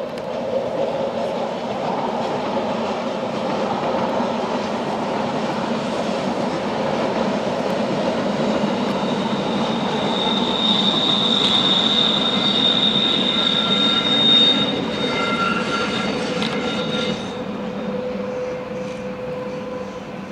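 Rhaetian Railway passenger train running across a curved stone viaduct, a steady rumble of wheels on rail. About halfway through, the wheels start squealing, a high ringing squeal that lasts several seconds, typical of flanges grinding on a tight curve.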